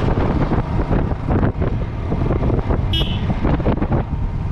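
Motorcycle running on the move, with wind rushing over the microphone. A brief high tone sounds about three seconds in.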